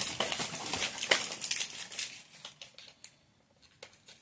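Gift wrapping paper crinkling and rustling as a present is unwrapped, dying away after about two seconds, followed by a few light clicks.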